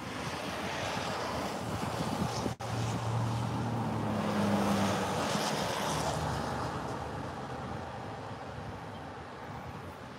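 Vehicle noise heard from inside a car: a steady rushing hiss with a low hum that swells about three seconds in and fades after about six seconds. The sound cuts out for an instant about two and a half seconds in.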